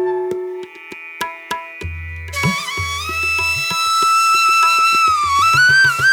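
Background instrumental music: drum hits throughout, joined about two and a half seconds in by a sustained, wavering melody line.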